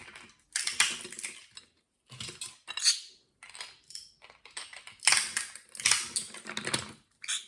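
Walnuts and walnut shells clattering and crackling against a pot in several short bursts of clicks and knocks.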